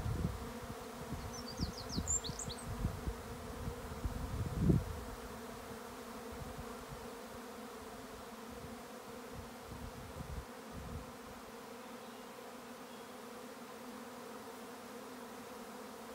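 A swarm of honeybees in flight, a steady, dense hum of many bees. There are low rumbles in the first five seconds.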